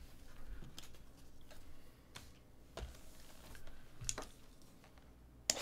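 Faint, scattered taps and clicks of trading cards being picked up off a table mat, then a cardboard card box being handled.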